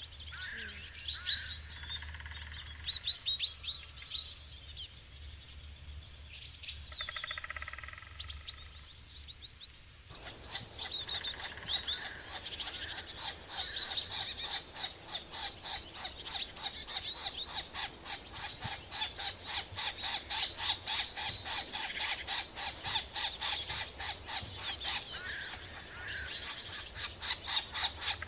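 Birds chirping and calling. About ten seconds in, the sound changes abruptly to a dense, rapid run of chirps repeating several times a second.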